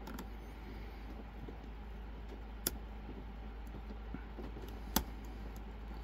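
Hook pick working the pins inside a Silver Bullet lock under tension: faint scraping and small ticks, with two sharper clicks about two seconds apart.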